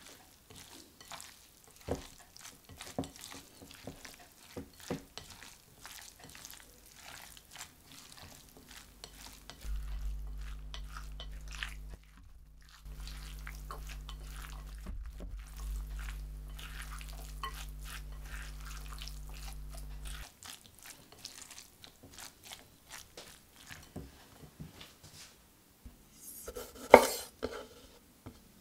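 A quinoa, roasted pepper and bean salad being stirred in a glass bowl with a silicone spatula: soft scraping and small clicks against the glass. A steady low hum runs through the middle stretch, and near the end there is a sharp knock on a wooden chopping board.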